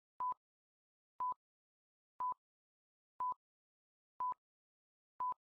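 Countdown timer beeping: six short, identical single-pitch beeps exactly a second apart, one for each number counted down from six.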